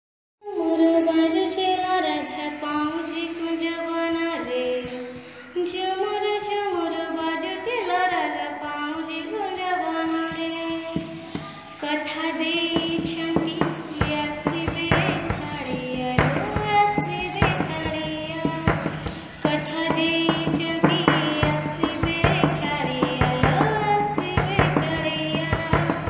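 Odia Krishna bhajan sung by a child, a devotional melody with gliding, ornamented notes. About halfway through, a quick percussion rhythm and a steady low drone join in.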